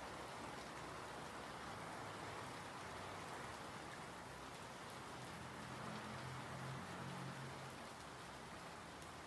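Steady, even rainfall with a dense patter of drops. A faint low rumble rises a little past halfway through and fades again.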